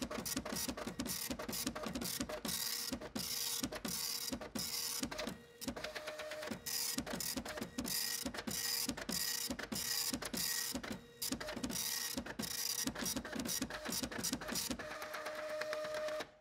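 Rapid, irregular mechanical clicking and chattering over a steady hum, with a couple of brief pauses. It cuts off suddenly near the end.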